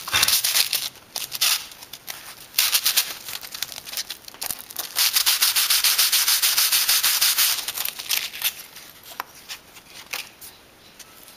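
Cuttlefish bone rubbed back and forth on sandpaper, a dry scratchy rasping in quick strokes, to flatten its face for a casting mould. It comes in bursts, runs steadily and hardest around the middle, then thins out and fades near the end.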